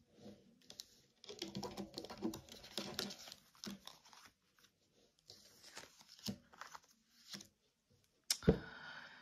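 Tarot cards being handled: soft rustling and small irregular clicks as the deck is shuffled and cards are drawn and laid down, with a sharper tap of a card on the table near the end.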